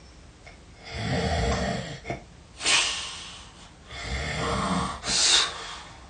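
A person snoring heavily, twice over. Each snore lasts about a second and is followed by a short, sharp burst of breath.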